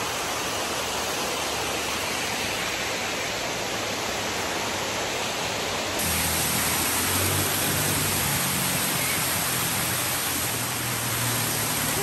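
Steady rush of a cascading waterfall, an even hiss of falling water; about halfway through it becomes slightly louder.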